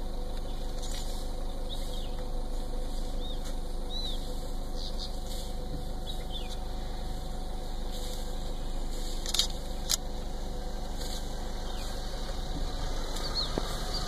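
A car engine idling steadily, heard from inside the vehicle, with two sharp clicks about nine and ten seconds in and a few faint high chirps.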